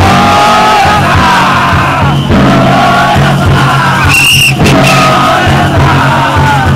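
Dozens of festival float bearers chanting together in repeated drawn-out phrases, the rhythmic call of men carrying a heavy yatai. A brief shrill high tone cuts through about four seconds in.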